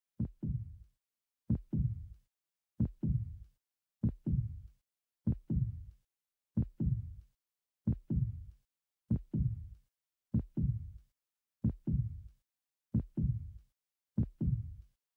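A slow heartbeat: a low double thump, lub-dub, repeating evenly about every second and a quarter, with silence between beats.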